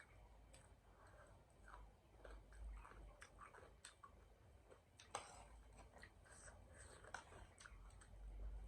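Faint, quiet chewing of gilo chatpate, a wet spicy puffed-rice snack, with scattered small mouth clicks and smacks.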